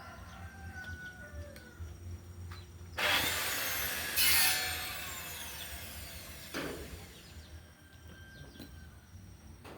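Electric hand planer switched on about three seconds in, running loudly with a short louder burst a second later, then switched off and winding down with a falling whine over the next few seconds.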